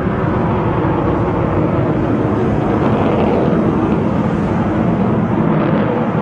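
Jet noise from an F-22 Raptor's twin Pratt & Whitney F119 turbofan engines as the fighter manoeuvres overhead: a loud, steady rush that swells a little about three seconds in.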